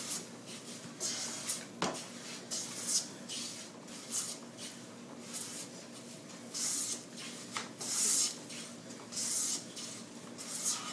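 Hand jointer plane taking long shavings off a maple board in repeated push strokes, each a short swish about once a second. The even full-length cuts are the sign that the board is being planed flat.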